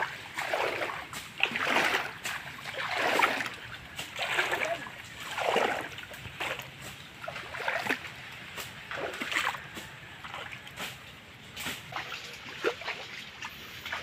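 Wading footsteps in shallow mangrove creek water, a splash with each stride about once a second. In the second half the steps are quieter, with sharp cracks and rustles from walking over dry fallen branches.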